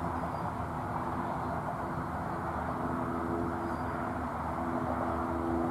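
Steady background drone: an even rushing noise with a low, constant hum under it, like distant traffic or machinery, with no distinct events.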